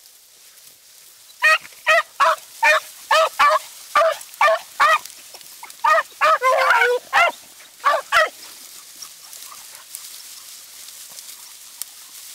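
Beagle baying: a fast run of about fourteen short, loud bays, roughly two a second, with one longer drawn-out bawl just past the middle. The calls stop about eight seconds in. On a rabbit hunt this is hound voice giving tongue as a beagle runs a rabbit's scent trail.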